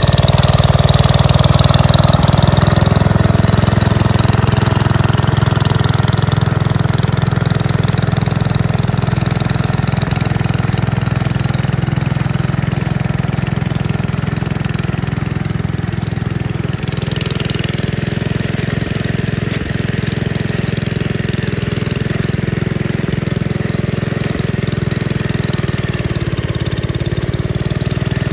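Gravely Commercial 10A walk-behind tractor's engine running steadily while powering a Dogeater snowblower attachment. It is a little louder in the first few seconds, and its pitch wavers near the end.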